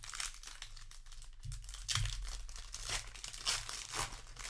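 Foil wrapper of a Magic: The Gathering set booster pack crinkling and tearing as it is handled and ripped open, with louder crackles about two seconds in and near the end.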